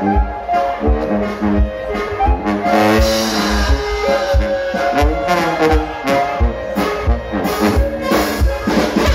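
Brass band playing a lively tune: trumpet, trombone and clarinet soloists carry the melody over a steady beat from tuba and drums.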